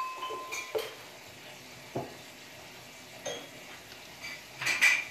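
Kitchen utensils knocking and clinking against pots and dishes during cooking: a few separate knocks, the loudest cluster near the end, with a brief metallic ring at the start.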